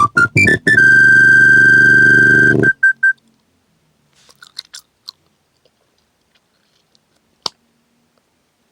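Electronic phone ringtone with boosted bass, played loud through a JBL Flip 3 portable Bluetooth speaker: quick stepping notes, then one long held high tone over heavy bass that stops near the three-second mark, followed by a few short beeps. Then near silence with a few faint clicks and one sharp click about seven and a half seconds in.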